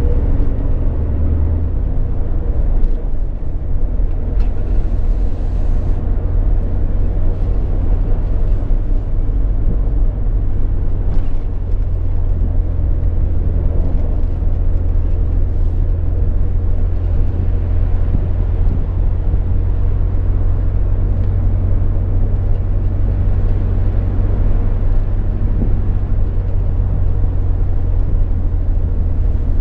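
Ford Mustang driving at steady speed, heard from inside the cabin: a constant deep engine drone with road and tyre noise.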